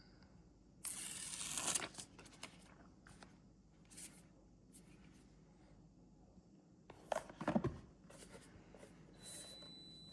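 Product packaging being opened by hand: a tearing sound lasting about a second near the start, a few light clicks and taps, then a louder burst of rustling and knocking around seven seconds in.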